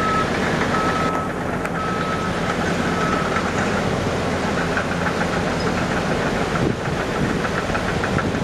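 Heavy dump truck's diesel engine running while its raised box dumps a load of rip-rap boulders. A backup alarm beeps about once a second, fading out after the first few seconds.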